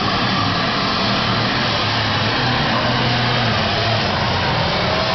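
Modified pulling tractor's engine running flat out under load on a pulling track, a loud, steady drone.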